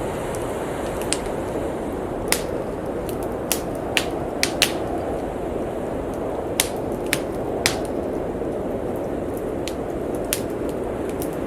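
Wood fire crackling in a fireplace, with sharp irregular pops a second or two apart, over the steady rushing of blizzard wind.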